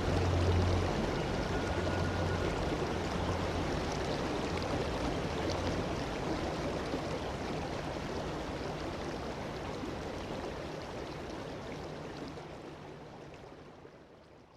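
A steady rushing noise like running water, with a low hum in the first second, fading out slowly until it has almost gone at the end.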